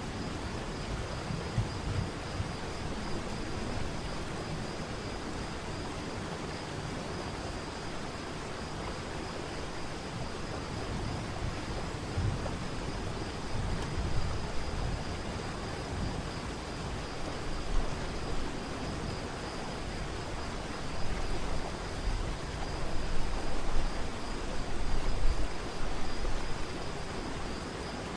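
Waterfall water rushing as a steady noise, with wind buffeting the microphone in low gusts that grow stronger near the end. A thin, steady high-pitched tone sits faintly underneath.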